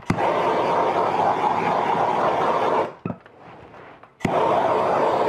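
Handheld trigger-start gas torch fired twice, each burst opening with a click of the igniter and then a steady flame hiss for about two and a half seconds. It is being passed over freshly poured epoxy to bring up and pop air bubbles.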